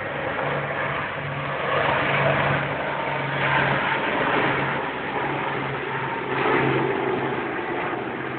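Military helicopter running: a steady low engine hum under broad rotor and turbine noise, rising and falling gently, in a low-quality recording with the high end cut off.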